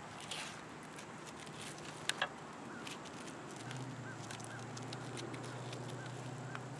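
Faint outdoor ambience with small birds chirping now and then, two sharp clicks about two seconds in, and a low steady hum that sets in about halfway through.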